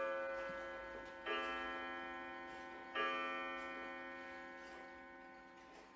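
A clock's chime striking three times, about a second and a half apart. Each stroke rings with many overtones and fades away slowly.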